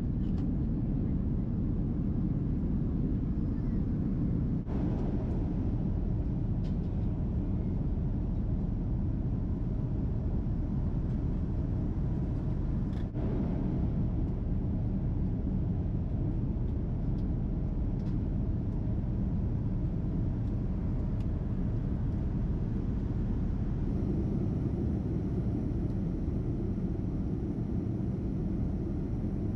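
Steady cabin noise of a Boeing 787-10 airliner in cruise: a low rumble of engines and airflow with a fainter hiss above it, broken twice by a brief dip.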